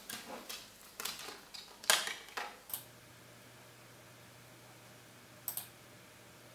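Clear plastic disc case being handled and opened, a run of light plastic clicks and rattles over the first few seconds. Then a faint steady hum with a single short click about five and a half seconds in.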